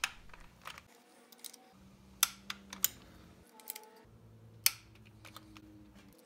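Scattered sharp metal clicks and taps, a second or so apart, from a torque wrench and socket being fitted to and tightening the transmission mounting bolts.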